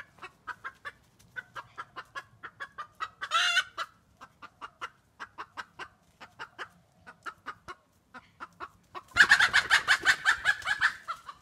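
Chicken clucking in a steady string of short notes, with one longer squawk about three and a half seconds in and a louder, faster run of clucks near the end.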